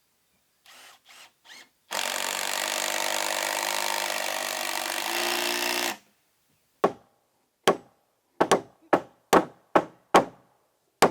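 A power tool runs on wood for about four seconds and stops sharply, after a few faint scrapes. Then comes a run of about nine sharp, irregularly spaced knocks on wood.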